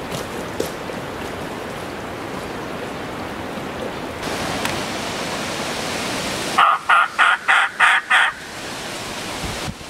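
Hunter's mouth turkey call blown through cupped hands: a run of six yelps, about four a second, near the end. Before it there is a steady rushing noise.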